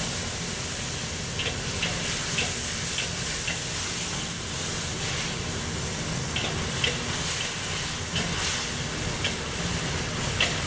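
Stir-fry sizzling in a carbon-steel wok over high heat as cornstarch-and-water slurry is poured in to thicken the sauce and the food is stirred, with a metal wok spatula clinking against the wok now and then. A steady low rumble runs underneath.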